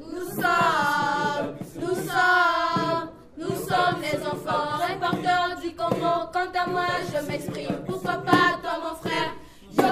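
A choir singing, with long held notes and short breaks between phrases; the singing pauses briefly about three seconds in.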